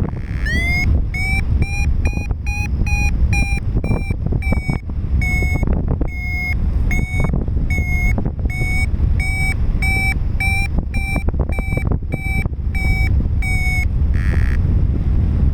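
Paragliding variometer beeping: about twenty short electronic beeps, close to two a second, shifting a little in pitch from beep to beep, the first one sliding upward. This is the vario's climb tone. Under it is a steady low rumble of wind buffeting the microphone.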